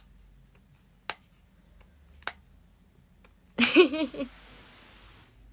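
Two sharp clicks about a second apart, then a short burst of a woman's laughter a little past halfway, the loudest sound here.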